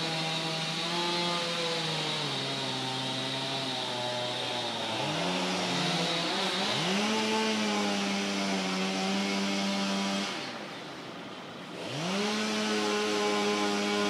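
Chainsaw engine running at high revs while cutting wood. Its pitch sags under load for a few seconds, then climbs back. About ten seconds in the throttle drops off briefly, and the saw revs back up near the end.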